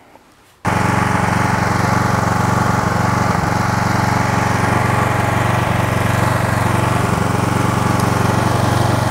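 Pressure washer running steadily, its spray hissing against a dirty automatic transmission case; it starts abruptly about half a second in.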